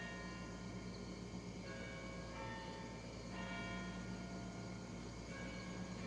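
Outdoor warning sirens, a Federal Signal 2T22 and an ASC T-128 a couple of blocks away, sounding a steady tone during a test; several held pitches swell and fade every second or two as the sound comes and goes, over a low steady hum.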